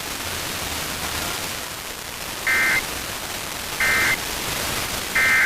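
Steady radio static hiss, then three short, identical warbling data bursts of the Emergency Alert System's SAME end-of-message code, about 1.3 seconds apart. They mark the end of the broadcast weather warning.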